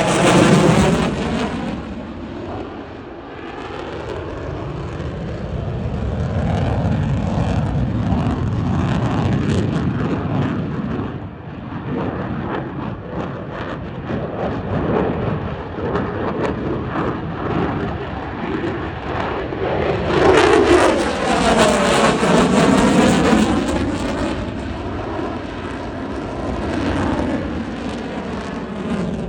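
F-22 Raptor's twin afterburning turbofan engines roaring through a flying display, loudest right at the start and again about two-thirds of the way through as the jet passes close, with a sweeping, falling pitch on each pass.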